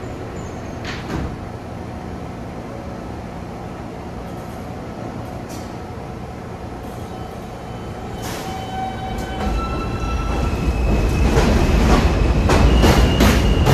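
New York City subway train leaving a station: the doors thud shut about a second in, then the train stands humming until its traction motors start with a stepped, rising whine about eight seconds in. It pulls away, getting steadily louder, with wheels clicking over the rail joints near the end.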